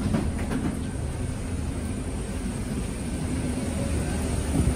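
Steady low rumble of airport and aircraft machinery inside a jet bridge at the gate, with faint knocks from the filmer walking in the first second.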